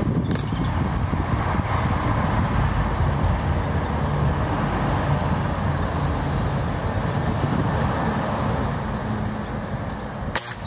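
Steady low outdoor rumble with a few faint bird chirps.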